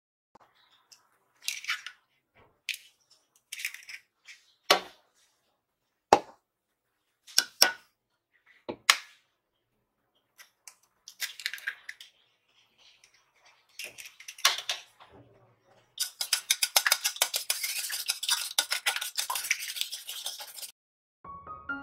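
Eggs knocked against a stainless steel bowl and cracked open: a series of separate sharp knocks and shell crackles. Then, for about the last five seconds, a whisk beats the eggs in the steel bowl in fast, even, clinking strokes.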